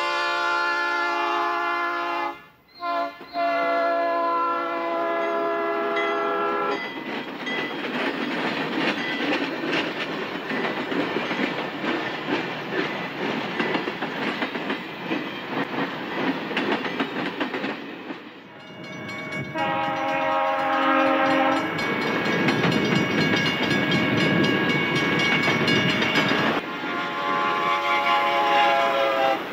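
Train horn blowing a long chord blast, broken briefly near the start and stopping about seven seconds in, then a train's running rumble with wheel clatter on the rails. A shorter horn blast comes about 19 s in, and another horn blast starts near the end.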